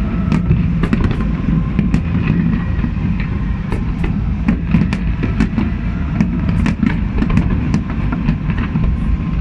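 Fireworks display: many sharp pops and bangs in quick, irregular succession over a constant low rumble.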